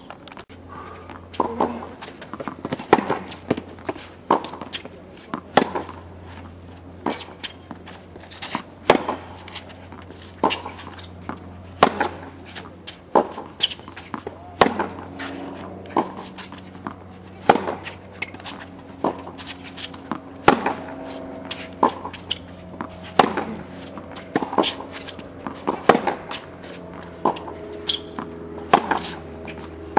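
Tennis rally on a hard court: repeated sharp pops of racket strings hitting the ball and the ball bouncing, about one every second, some louder and some fainter, over a steady low hum.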